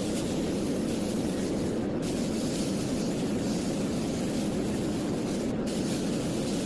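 Handheld laser cleaning machine working on metal: a steady hiss over a constant fan-like rush. The high hiss breaks off for an instant twice.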